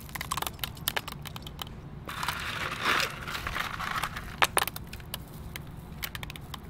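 Crushed glass chips clicking and clinking as they are scooped by hand from tubs and scattered, with a short rustling scrape about two seconds in.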